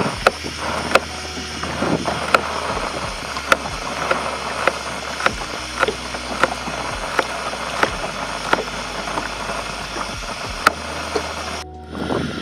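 Knife chopping garlic cloves on a plastic cutting board: sharp, fairly regular taps a little more than once a second over a steady low rumble. The taps stop near the end.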